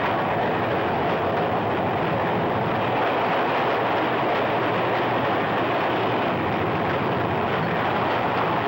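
Diesel-hauled freight train running with a steady rumble of wheels on the rails.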